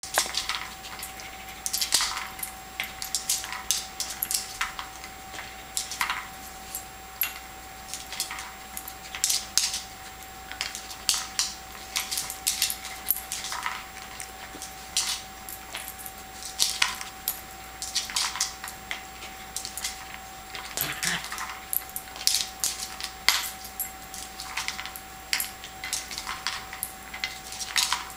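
Kong Wobbler treat toy being knocked and tipped about by a dog, its hard plastic shell wobbling with treats rattling inside: irregular bursts of sharp clattering clicks, several a second at times, with short pauses between.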